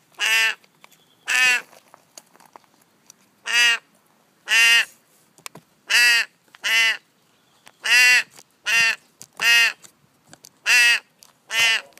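Raven calling over and over to be fed: about eleven short, harsh, nasal calls, each a third of a second long, coming roughly once a second.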